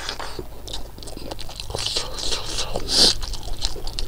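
A person chewing a mouthful of rice with buffalo innards curry: a string of short clicks and mouth noises, the loudest about three seconds in.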